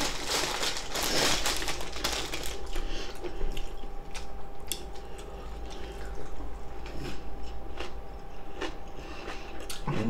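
Close-miked eating sounds: chewing with small wet mouth clicks and swallows of milk drunk from a glass. A crinkling rustle comes in the first couple of seconds.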